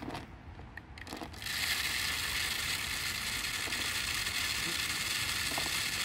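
Birdseed pouring from a bag through a funnel into the plastic jug of a bird feeder: a steady rattling hiss that starts about a second and a half in, after a few soft rustles of the bag.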